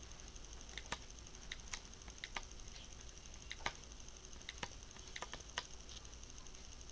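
Slow, irregular typing: about fifteen faint key clicks on a computer keyboard, spaced unevenly, over a faint steady hiss.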